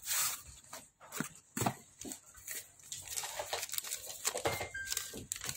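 Cardboard packaging and a paper invoice being handled and unfolded: irregular rustling and crinkling with scattered soft taps.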